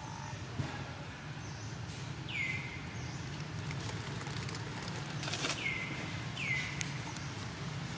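Outdoor forest ambience with a steady low hum, over which a bird gives three short whistled calls, each sweeping down and then levelling off: one about two seconds in and two close together later on.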